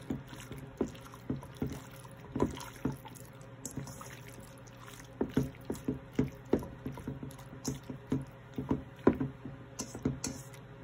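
Hands squeezing and mashing raw sliced beef in a soy sauce, garlic and ginger marinade in a stainless steel bowl. Irregular wet squelches come a few times a second.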